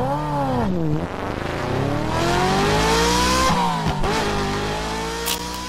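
A vehicle engine revving and accelerating through the gears: a quick blip at the start, then the pitch climbs, drops sharply about three and a half seconds in at a gear change, and climbs again. There is a short hiss near the end.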